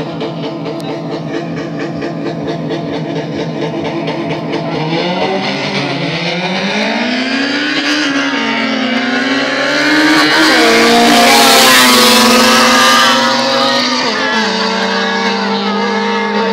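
Racing engines at a drag race revving in pulses, then climbing in pitch under hard acceleration. They are loudest about ten to thirteen seconds in as they come close, then drop slightly in pitch and hold a steady note.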